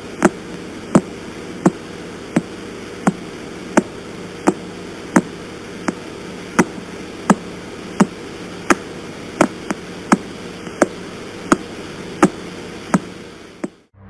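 Radio signal of the pulsar PSR B0329+54 played as sound: sharp clicks about 1.4 times a second, one per rotation of the star, over a steady static hiss. It cuts off suddenly near the end.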